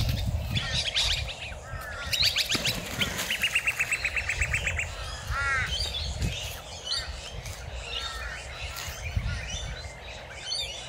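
Wild birds chirping and calling over one another, with a fast even trill about three to five seconds in. Low flapping and scuffling noise in the first second comes from the black swan beating its wings at the Muscovy duck.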